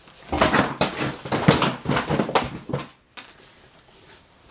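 Books and clothing being handled as a fallen book is retrieved: a dense run of knocks, thumps and rustles for about three seconds, then a single click.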